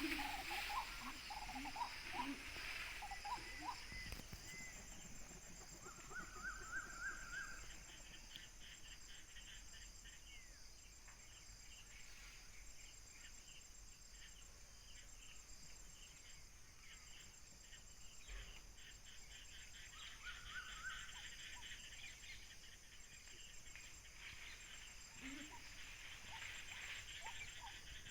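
Faint outdoor ambience of a steady high insect buzz like crickets, with scattered short bird chirps. There are a few bird notes in the first seconds and two held whistled calls, one about six seconds in and one about twenty seconds in.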